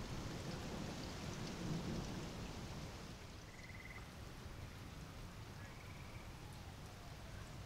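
Thunder rumbling and dying away over the first few seconds, leaving a steady low hiss of rain and wind. Two short high trills sound midway.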